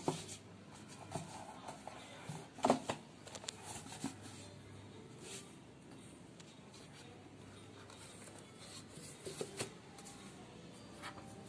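Cardboard smartphone box handled and opened by hand: scattered light taps, scrapes and rustles, the loudest knocks about two and a half seconds in and a small cluster about nine seconds in.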